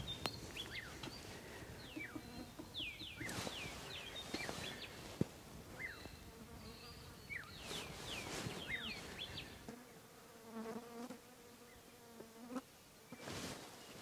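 A fly buzzing close by, loudest about ten to thirteen seconds in, over birds giving short, high, falling whistled calls, with a few soft rustles.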